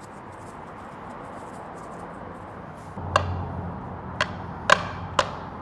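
Metal fork-style masher stirring and smashing potatoes in a cast iron skillet. From about three seconds in it scrapes through the potatoes and clinks sharply against the pan four times.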